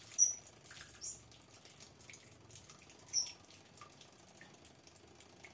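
A thin stream of liquid soap trickling faintly from a plastic bottle into a washing-machine tub, with a few short high bird chirps over it; the loudest are just after the start and about three seconds in.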